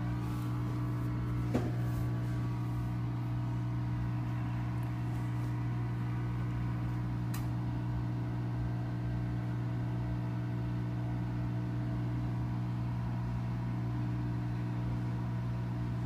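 GE front-loading washing machine running with a steady motor hum as its drum turns a light load of three towels, with one short click about one and a half seconds in.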